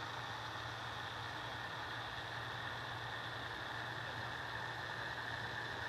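Paramotor engine and propeller running with a steady drone as the powered paraglider flies overhead.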